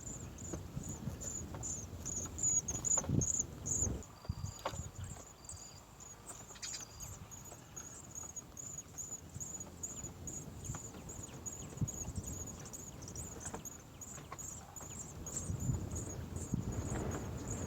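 An insect, cricket-like, chirping steadily in a high-pitched, even rhythm of several chirps a second. Scattered low knocks and a few brief high whistled notes about four to seven seconds in.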